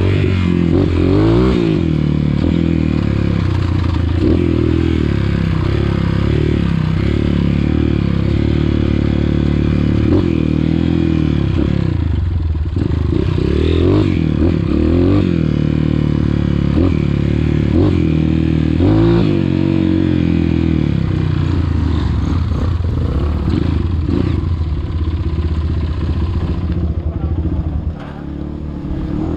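Dirt bike engine running under way, its note rising and falling as the throttle is opened and closed again and again. It drops quieter about a second before the end.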